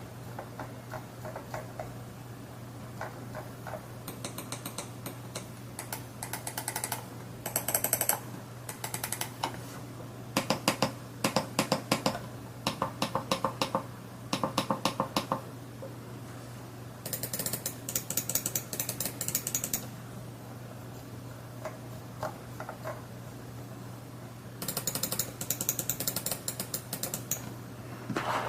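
MAXTILL TRON G10 gaming mouse buttons clicking, in runs of single clicks and fast bursts separated by short pauses, over a faint steady low hum.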